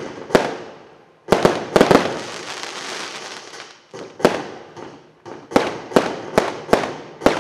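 Fireworks going off: sharp bangs of bursting shots, each with a short echoing tail. A cluster of three bangs comes about a second in, followed by a spell of crackling. Near the end comes a run of single bangs roughly every half-second.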